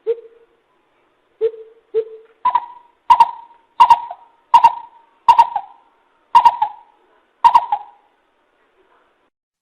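Coucal (bìm bịp) calling: a few low hoots, then a run of about seven higher hoots spaced about two-thirds of a second apart, dying away near the end.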